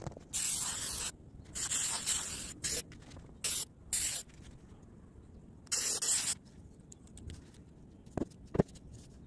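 Aerosol can of Krylon Metallic spray paint hissing in six short sprays over the first six and a half seconds. Two light knocks near the end.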